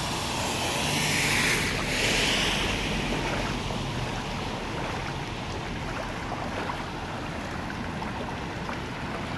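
Floodwater about eight inches deep rushing and sloshing around the legs of someone wading through it, a little louder with splashing between one and two and a half seconds in.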